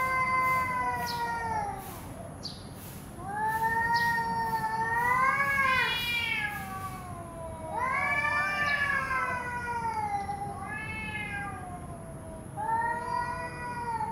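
Domestic cats squaring off, yowling: about five long, drawn-out wavering moans that rise and fall in pitch, with short pauses between them, the warning calls that come before a cat fight.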